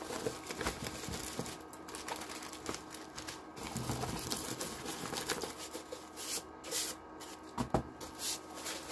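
A rolled diamond painting canvas being handled and flattened out by hand: irregular rustling, crinkling and small knocks, with a few sharper taps near the end.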